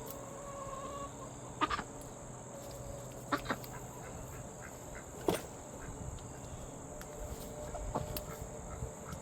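Chickens clucking now and then, with a few sharp clicks, the loudest about five seconds in.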